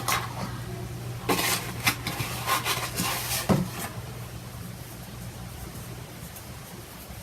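A utensil stirring a slime mixture in a bowl, clicking and scraping against the bowl in a run of knocks over the first three and a half seconds, then quieter stirring. A steady low hum runs underneath.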